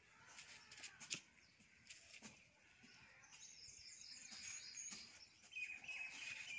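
Faint birds chirping in the background, with a few soft clicks early on; otherwise near silence.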